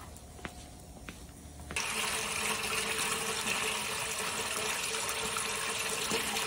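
Water gushing from a hose into a large aluminium stockpot, starting suddenly about two seconds in and running steadily. Before it, a few faint clicks.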